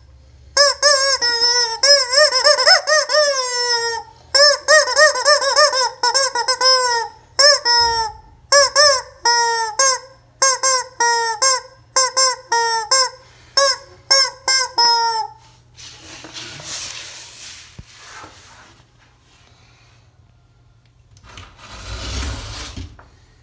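Squeeze-type rubber chicken toy squawking over and over in quick, shrill, honking squeals for about fifteen seconds, with brief pauses. It is followed by two stretches of hissing noise without pitch.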